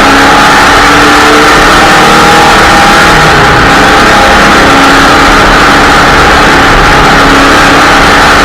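Off-road race car's engine running hard, heard from inside the car: a loud, steady din whose engine pitch wavers slightly but never drops away.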